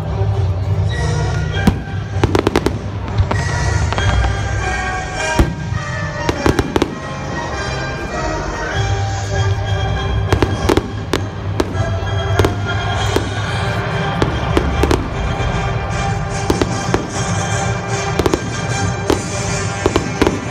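Aerial fireworks bursting in a rapid string of sharp bangs and crackles, over continuous music with a steady run of tones.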